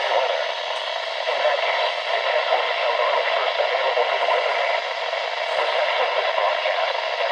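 NOAA Weather Radio weekly test broadcast from a receiver: a voice announcement, hard to make out, under steady radio static hiss.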